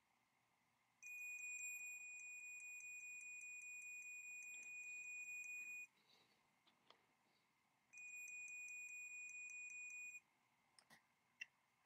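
Digital multimeter's continuity beeper sounding a steady high beep for about five seconds, then again for about two seconds, as the probes bridge the electric chainsaw motor's field winding: the winding has continuity. A few faint clicks near the end.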